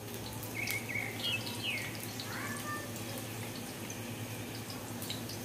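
Egg-dipped bread slices shallow-frying in hot oil in a pan: a steady sizzle with small pops. A few short, high chirps sound in the first half.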